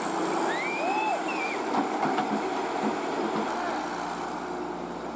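Diesel engine of a Tata Hitachi EX200 LC excavator running steadily at work, with a brief rising-and-falling chirp-like call about a second in.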